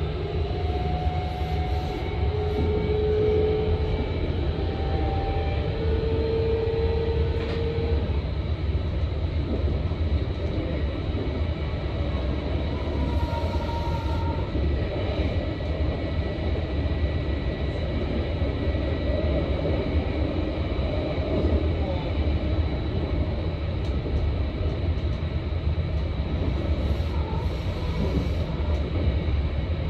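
Electric train running on the line, heard from the front of the train: a steady low rumble of wheels on rail, with a motor whine that climbs in pitch over the first several seconds.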